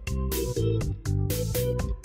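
Background music with a steady beat: a bass line and pitched notes under a sharp percussion hit about twice a second.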